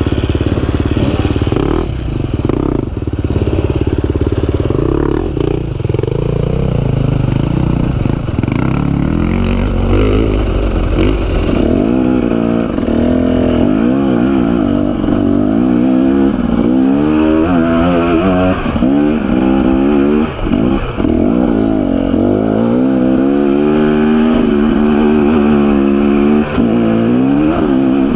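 Dirt bike engine heard from the rider's seat, running at low revs for about the first ten seconds, then revved up and down again and again as the bike climbs a steep, rocky trail.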